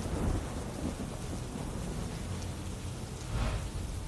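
Heavy rain falling steadily with low rumbling thunder, the rumble swelling louder about three and a half seconds in.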